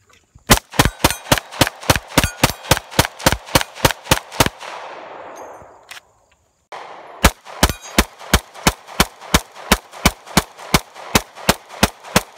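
Homemade 9mm pistol with a wooden Glock 19 frame and Glock slide fired rapidly, about four shots a second, in two long strings with a break between them. The pistol cycles shot after shot.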